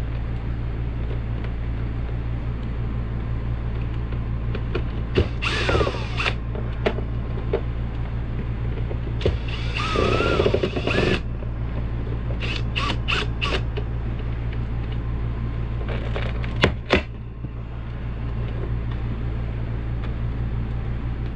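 Handling noise as an old 12 V ceiling fan is pulled down from the ceiling: bursts of plastic scraping and squeaks, a quick run of clicks, and two sharp clicks near the end. A steady low hum runs underneath throughout.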